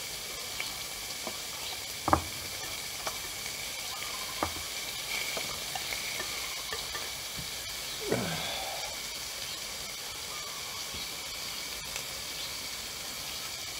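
Sliced marinated beef sizzling on a dome grill pan in a steady hiss, with a few sharp knocks of chopsticks against the pan, the loudest about two seconds in.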